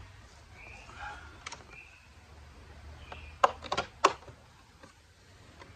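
Plastic interior trim of a Chrysler 300 being pried loose with a plastic trim tool: a quick cluster of sharp clicks and snaps a little past halfway as the retaining clips pop out. A few faint high chirps come earlier.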